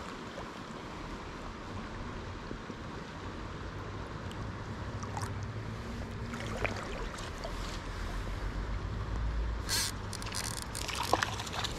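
Stream current running and rippling over a riffle, with a low rumble that builds in the second half and a few short splashes or knocks near the end.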